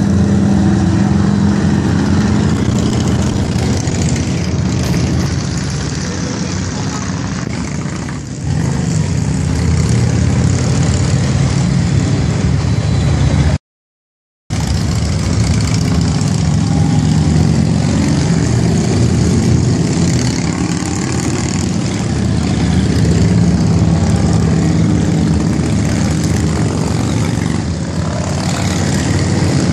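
A procession of large touring motorcycles riding past one after another, their engines running in a loud continuous rumble that swells as each group goes by. The audio cuts out completely for under a second about halfway through.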